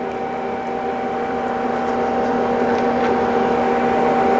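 Steady hum of running machinery: several steady tones over a hiss, slowly growing louder, with a few faint ticks near the middle.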